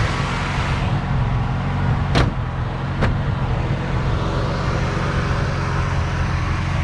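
Toyota 4E-FTE turbocharged four-cylinder engine idling steadily, with two sharp clicks about two and three seconds in.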